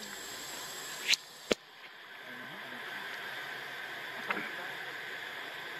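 Steady outdoor forest ambience, a high hiss, broken by two sharp clicks about a second in and a fainter one near the end.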